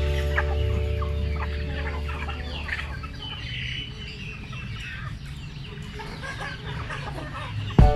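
A flock of chickens clucking while feeding, with high peeps from the chicks mixed in. A low steady tone fades away over the first few seconds.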